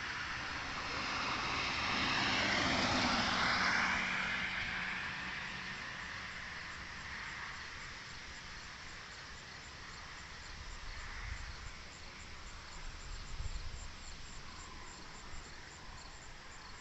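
A vehicle passing by on a road, its tyre and engine noise swelling over the first few seconds and then fading away. Faint high chirps repeat evenly throughout.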